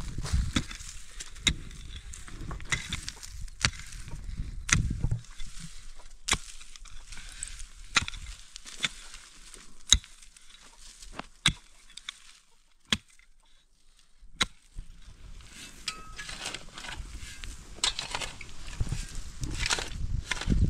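Hand-tool blows: a run of irregular sharp knocks, roughly one a second, with a quiet lull about two-thirds of the way through.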